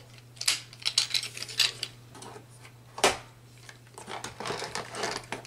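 Light metallic clinking and clicking of a lockout padlock, its key and a danger tag being handled and fitted to a rotary isolator switch, with one sharper click about three seconds in.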